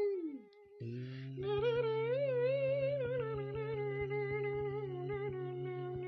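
Background music: a wavering, hum-like melody over a steady low drone. The melody slides down and drops out briefly near the start, then comes back just under a second in.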